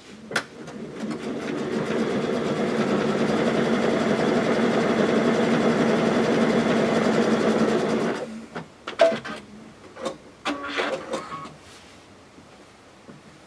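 Electric home sewing machine stitching a diagonal seam through three layers of flannel. It speeds up over the first couple of seconds, runs steadily and stops about eight seconds in. A few sharp clicks and knocks follow.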